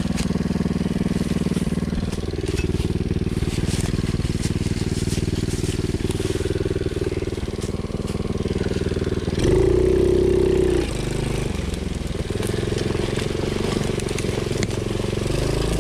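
Coolster 110cc youth ATV's small four-stroke single-cylinder engine running while riding a trail, with a short burst of throttle about two thirds of the way through. Dry leaves and twigs crackle under the tyres.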